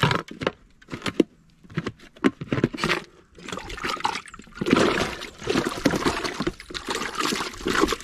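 Water splashing and sloshing in uneven bursts, heavier in the second half, with sharp clicks and knocks in the first few seconds.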